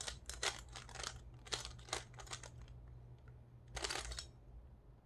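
Plastic 3x3 speed cube being turned fast during a solve: quick runs of clicking, clacking turns, a pause of about a second in the middle, then another rapid burst of turns.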